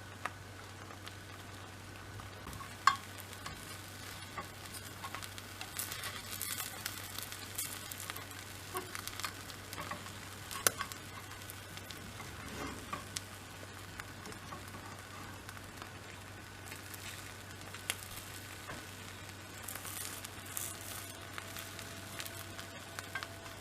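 Beaten egg omelette with vegetable filling frying quietly in an oiled tamagoyaki pan, a low steady sizzle, with a few sharp taps of a utensil on the pan.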